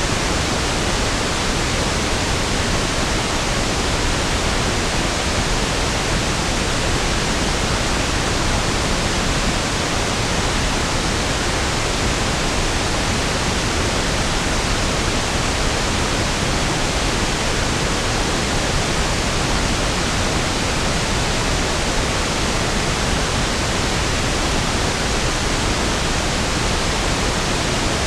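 Pink noise (1/f noise): a steady, even hiss with equal energy per octave and no changes.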